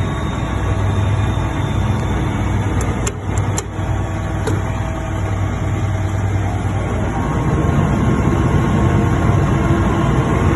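1996 Kenworth T450 concrete mixer truck's diesel engine running steadily, with a few sharp clicks about three seconds in; the engine gets louder about seven seconds in.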